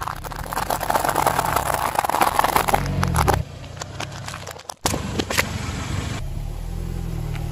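Dry fusilli pasta crackling and crunching under a car tyre for about three and a half seconds. After a cut come a few sharp cracks as the tyre rolls over a food packet, then the car's engine runs low.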